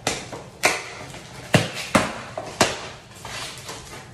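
Cardboard shipping box being pulled open by hand: a series of sharp cracks and rustles as the sealed flaps are torn apart, with about five loud snaps.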